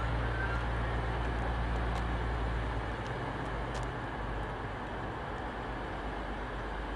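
Class 222 Meridian diesel multiple unit standing with its engines running, a steady low hum that drops in level about three seconds in, over station background noise.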